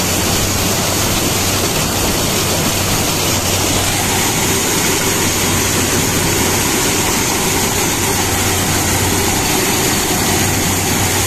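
Corn combine harvester running steadily: a loud, even engine noise with a constant low hum.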